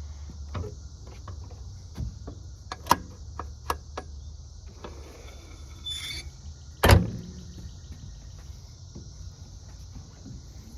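Short knocks and clicks of a metal panel being handled on a mini excavator, then one loud bang about seven seconds in as it is shut. Insects chirp steadily in the background.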